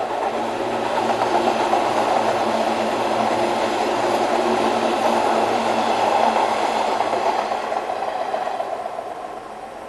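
JR 485-series 'Resort Express Yu' electric train passing at speed: steady rumble of its wheels on the rails that builds right at the start, holds, and fades away over the last couple of seconds as it leaves.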